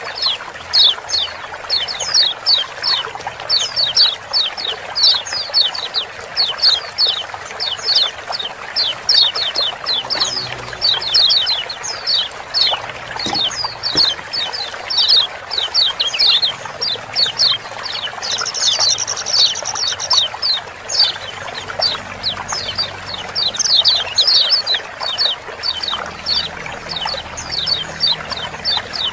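Lemon-bellied white-eyes (kecial kuning) giving fast, busy 'ciak-ciak' chirps: short, high, downward-sliding notes several a second in tight clusters, with one longer, higher call about two-thirds of the way through. Steadily running water hisses underneath.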